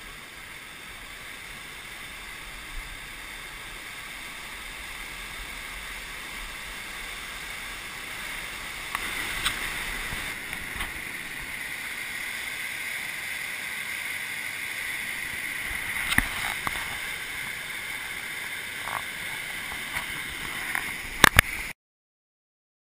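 Rushing water of river rapids, a steady noise that grows a little louder, with a few sharp knocks about halfway through and near the end; the sound cuts off suddenly just before the end.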